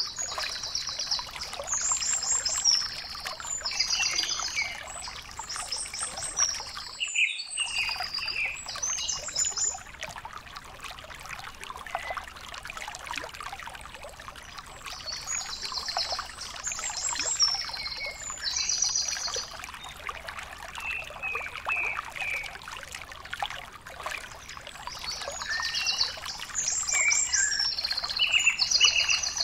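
A bird singing in bouts of rapid, high trilled phrases, over a steady hiss full of faint clicks. The sound drops out for a moment about seven seconds in.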